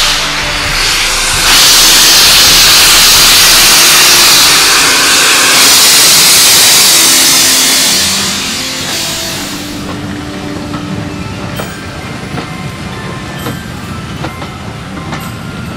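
A steam locomotive passing slowly, with loud hissing escaping steam for the first eight seconds or so. The hiss then fades and gives way to the clicking and knocking of the coach wheels over the rail joints as the carriages roll by.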